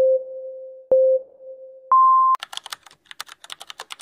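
Film-leader countdown sound effect: a click and a mid-pitched fading beep, repeated about a second later, then a higher, shorter beep about two seconds in. A rapid run of typing clicks follows to the end, as text is typed out on screen.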